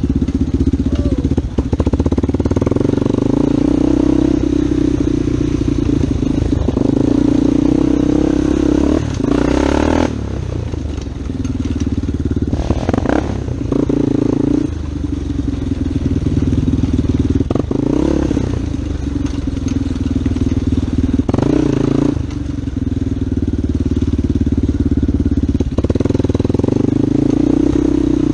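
Yamaha Warrior 350 ATV's single-cylinder four-stroke engine running under way on a dirt trail. The revs rise and fall with the throttle, with about six brief drops in pitch as the rider lets off or shifts.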